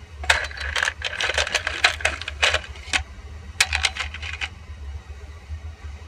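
Small plastic twist-on wire connectors (wire nuts) clattering as a hand rummages through a tray of them: a quick run of light clicks for about three seconds, then a shorter burst about half a second later.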